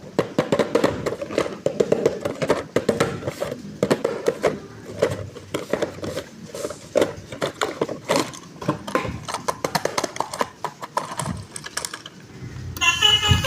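Handling of toy packaging and a plastic toy: many irregular clicks, taps and crinkles. Near the end, a toy bus's electronic multi-tone horn sound starts.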